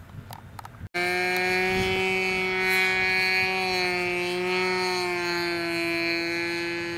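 OS Engines 55AX two-stroke glow engine of an RC aerobatic plane running at steady high throttle as the plane passes close overhead. It cuts in abruptly about a second in after a fainter stretch, and its pitch sags slightly near the end.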